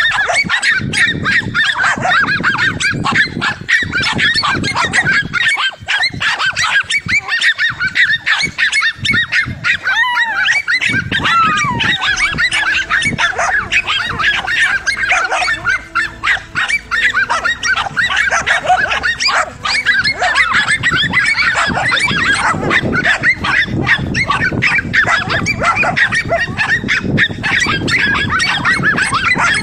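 A pack of dogs barking and yelping in a frenzy, a loud nonstop barrage of short calls with a few high whines in the middle.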